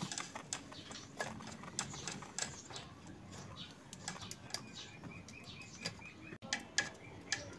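Faint, scattered small metal clicks and scrapes as the ground-wire screw on a spin dryer's motor bracket is worked at by hand; the screw won't come off.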